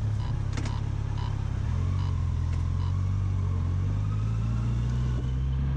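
Yamaha FJR1300's inline-four engine running steadily at low speed, a low hum with a small step in pitch a little under two seconds in.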